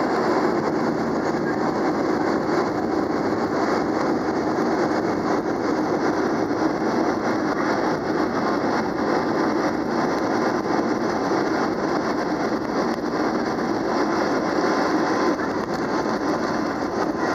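Boeing 737 jet engines running with a steady, even rushing noise that neither rises nor falls.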